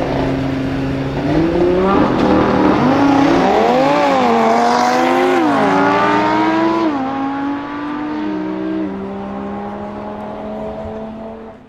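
Modified Audi TT RS, with its turbocharged 2.5-litre five-cylinder and decat Milltek exhaust, launching side by side with an Audi R8 in a drag race. Engine noise holds steady at launch-control revs, then rises hard through several upshifts, the pitch dropping at each change, and fades as the cars pull away.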